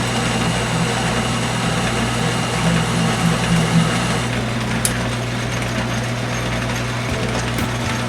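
Atlas metal lathe running steadily, a constant machine drone.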